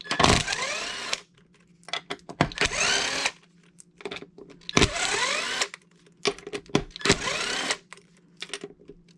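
Cordless drill/driver running in four short bursts, its whine rising in pitch at the start of each, with small clicks between bursts as screws on an RC truck's chassis are worked.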